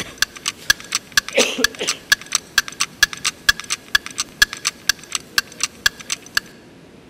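Electronic countdown ticking from an audience-voting timer, about four sharp ticks a second, that stops abruptly near the end. A voice is heard briefly about a second in.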